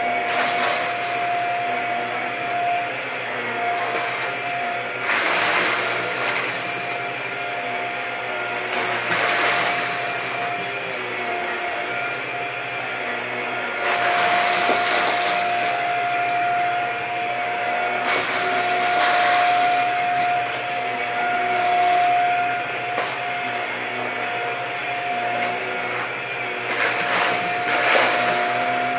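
Stick vacuum cleaner with a powered floor head running over a rug strewn with small debris: a steady motor whine over a hiss, which swells to a louder rush every few seconds.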